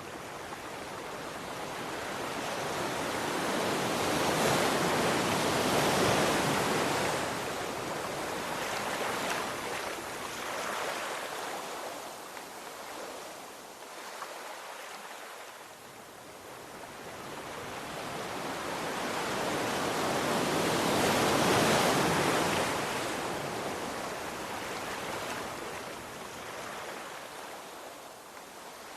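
Ocean waves breaking and washing up on the shore: two slow swells of surf, loudest about five seconds in and again about twenty-one seconds in, with a quieter lull between them.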